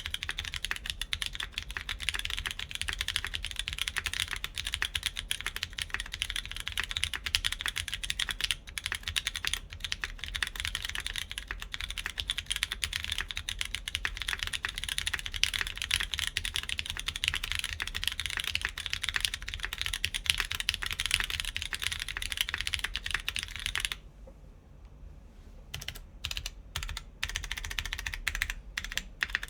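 Mechanical keyboard with lubed Cherry MX Brown tactile switches on a full aluminum plate and SWG beige keycaps, typed on fast and steadily. About three-quarters of the way through the typing stops for a second or two, then resumes as a few separate keystrokes that pick up again near the end.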